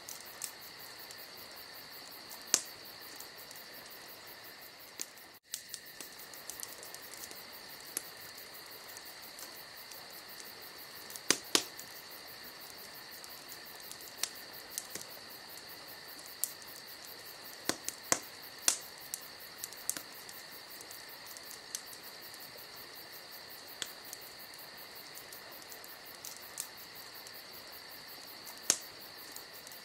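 A steady chorus of crickets trilling, with scattered sharp clicks, the loudest a pair about eleven seconds in.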